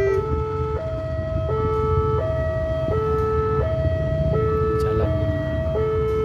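Railway level-crossing warning alarm sounding two tones that alternate high and low, each held about two-thirds of a second, over a steady low rumble. The tail of a horn note cuts off at the very start.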